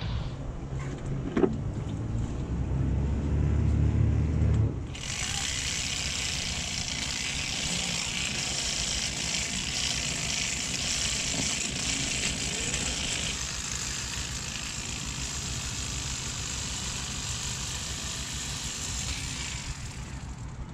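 Boat motor running with a low, steady hum and a single sharp click about a second and a half in. About five seconds in the sound changes abruptly to a steady loud hiss of wind and rushing water as the boat runs, with the motor lower underneath.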